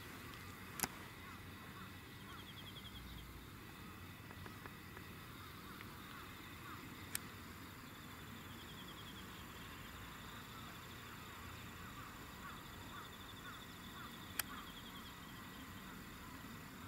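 Faint outdoor ambience of insects chirping and trilling in grass, with three sharp clicks spaced several seconds apart.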